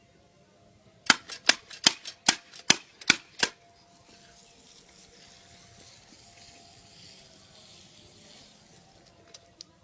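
A puppy lapping or snapping at the water of a drinking fountain: a quick run of about seven sharp wet slaps a little over two a second, about a second in. A faint steady hiss follows.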